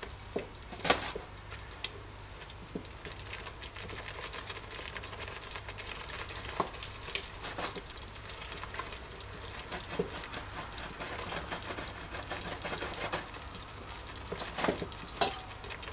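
Wooden spoon stirring a thick onion and paprika paste in a stainless steel pot, with a low sizzle and crackle from the paste frying on low heat and now and then a sharp knock of the spoon against the pot.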